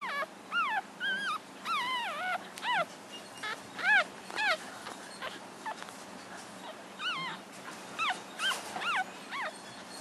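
Week-old American Cocker Spaniel puppies whimpering and squeaking: many short, high calls that rise and fall in pitch. They come in bunches, with a lull of about two seconds around the middle.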